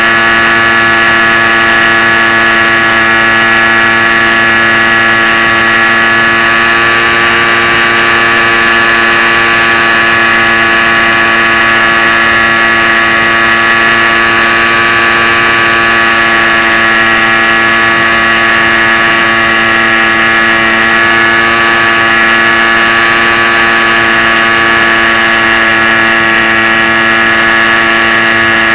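Small electric motor and propeller of a HobbyZone Champ RC airplane in flight, a loud steady whine that holds one pitch, picked up close from a keychain camera mounted on the airframe.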